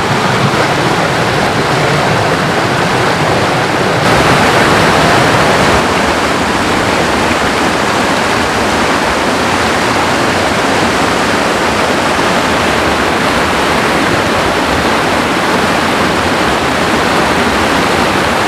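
Rocky creek rushing over boulders in small rapids: a loud, steady water noise, briefly louder about four seconds in.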